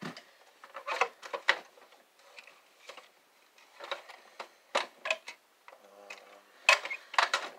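Wire cutters snipping through wires on a stripped CRT monitor, with clicks and knocks from its plastic chassis being handled: irregular sharp snaps, the loudest pair near the end.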